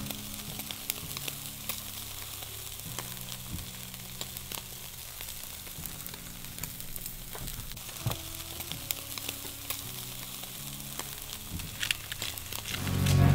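Ribeye steaks sizzling on a charcoal grill grate: a steady hiss with frequent small pops and crackles.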